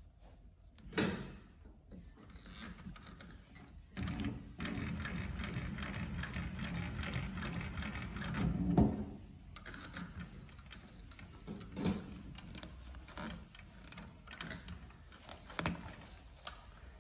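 Consew P1255RBLH-18-1 long-neck walking-foot sewing machine stitching through croc-embossed material: a rapid, even run of needle strokes starting about four seconds in and stopping about five seconds later. A few separate knocks and clicks come before and after the run.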